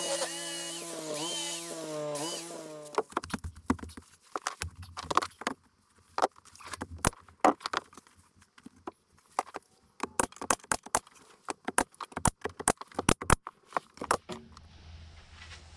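A few seconds of background music, then a long run of sharp, irregular clicks and knocks, coming several a second at times.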